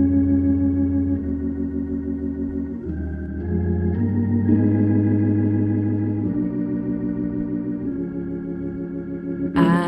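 Organ playing held chords with a fast, even wavering, changing chord every second or two as a song's intro. A woman's singing voice comes in near the end.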